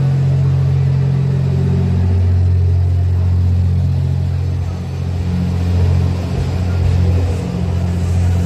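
JR West 87 series Twilight Express Mizukaze diesel-battery hybrid train pulling out past the platform, giving a loud, steady low drone from its underfloor machinery. The drone shifts in pitch about halfway through.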